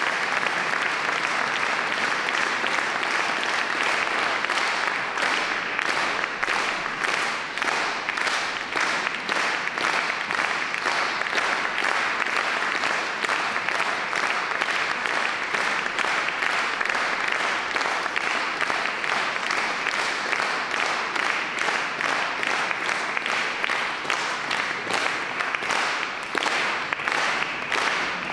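Concert audience applauding steadily. After about five seconds the clapping settles into an even rhythm.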